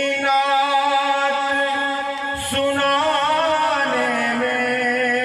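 A man singing a naat, an Urdu devotional song praising the Prophet, into a microphone. He holds long, drawn-out notes and turns them with wavering ornaments.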